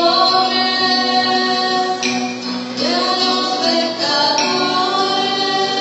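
Music: a group of voices singing long held notes together, with instrumental accompaniment.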